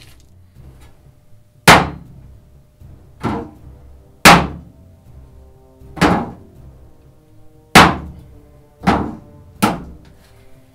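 Harnds Beak folding knife's tip being stabbed into thin 26-gauge sheet metal: seven sharp metallic punches at uneven intervals, each ringing briefly, the first, third and fifth the loudest.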